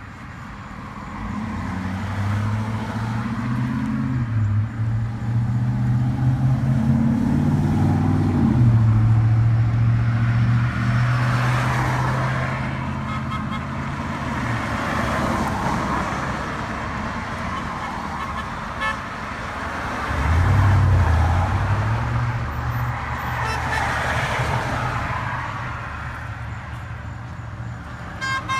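Vehicles passing on a road with tyre rush, and horns honking in reply to flag-waving, one honk held for several seconds before it cuts off.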